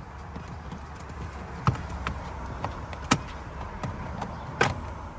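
Plastic retaining clips of a Subaru WRX's dashboard air-vent trim panel snapping loose as the panel is pulled off by hand: three sharp snaps about a second and a half apart, with lighter clicks between.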